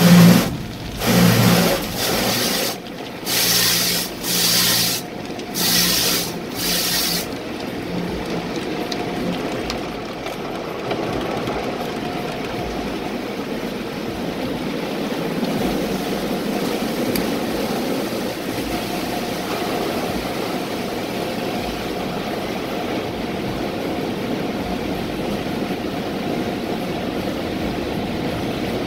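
Automatic car wash heard from inside the car. For the first seven seconds a run of loud spray bursts hits the glass about once a second. Then comes a steady rush of water pouring over the windshield and body.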